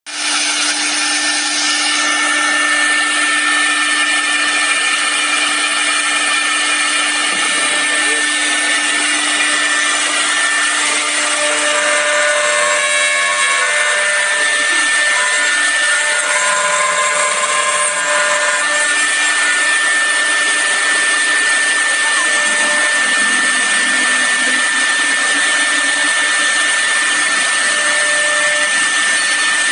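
A 6 kW HSD air-cooled CNC router spindle running with a steady high whine while its bit cuts into a bark-covered log turning on the rotary axis, over a constant noise of cutting wood.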